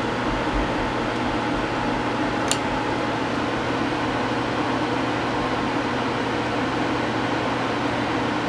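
Steady machine hum and hiss, with one short click about two and a half seconds in.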